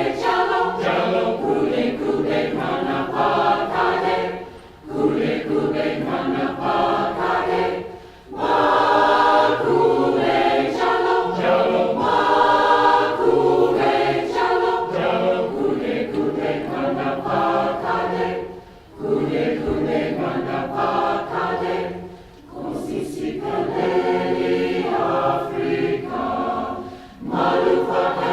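Community choir singing in phrases, with brief breaks between them, five of them, every few seconds.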